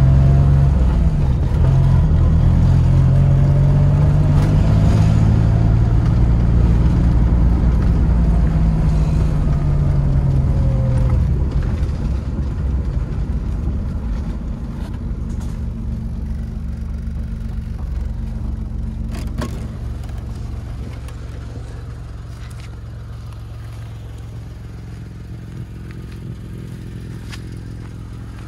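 Engine of a revived barn-find Suzuki Swift hatchback running as the car is driven slowly, its pitch rising and falling gently under light throttle. About 11 seconds in it settles to a steady idle that fades gradually, with a single sharp click a little past the middle.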